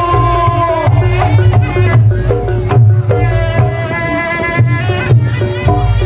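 Traditional Javanese Reog music played by the live ensemble: a wind-instrument melody with held, wavering notes over steady drumming.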